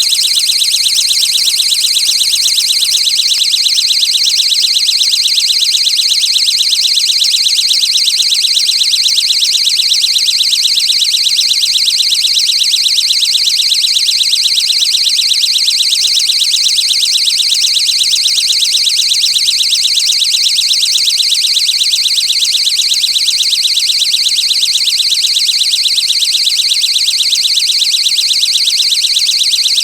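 Electronic beeping: a loud, shrill high-pitched tone pulsing rapidly and evenly without a break, like an alarm buzzer.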